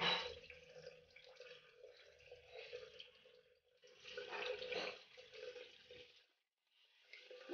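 Tap water running into a plastic colander in a sink while raw fish slices are rinsed and turned by hand, with louder splashing at the start and about four seconds in. The water sound breaks off briefly near the end.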